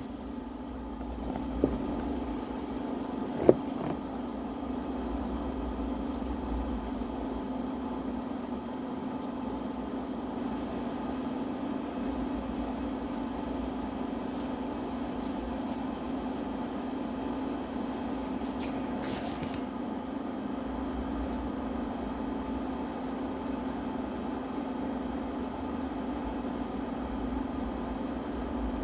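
Small hard clicks and scrapes of a plastic DVD case being handled and picked at with a headphone jack to open its wrap: two sharp clicks in the first few seconds and a brief scratchy rustle about two-thirds through, over a steady low hum.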